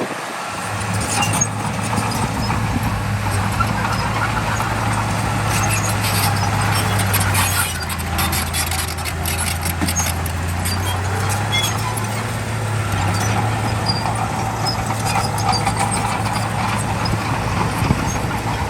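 Bulldozer's diesel engine running steadily, its pitch dropping about eight seconds in and coming back up a few seconds later, with scattered clanks and knocks of the machine working.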